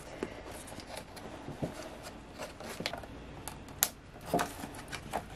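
Thin clear plastic tub and its snap-on lid being handled and prised open: scattered light clicks and crinkles, the sharpest click a little under four seconds in.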